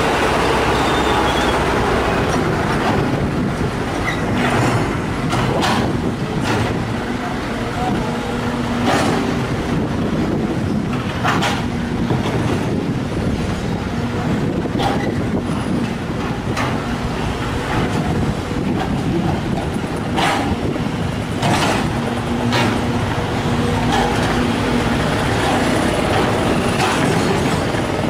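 Sumitomo SH210 hydraulic excavator's diesel engine running steadily under load, with irregular sharp clanks and knocks as the bucket digs into and scrapes through soil and rocks.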